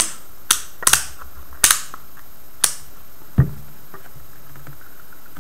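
Sharp clicks of a handheld digital multimeter's rotary selector dial being turned and its test probes handled: about six clicks in the first three seconds, then a duller knock about three and a half seconds in.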